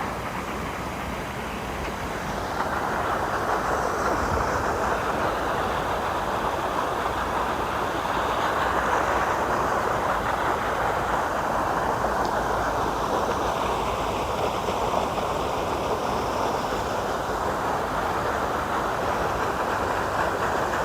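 A steady rushing noise, like moving air or water, that swells slightly a few seconds in and then holds.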